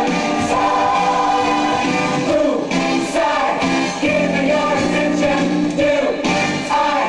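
Music with several voices singing together, choir-like, over a steady accompaniment.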